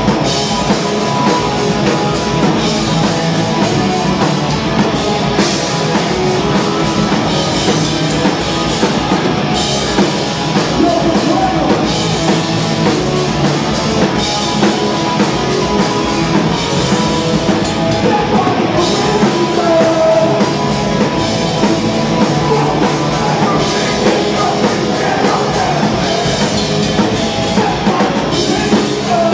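A hardcore punk band playing live and loud, with distorted electric guitars, bass, a pounding drum kit and vocals into a microphone, all in one dense, unbroken wall of sound.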